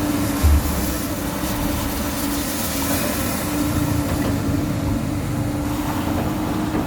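Komatsu PC200 excavator's diesel engine running steadily, a constant hum over a low rumble, with one brief low thump about half a second in.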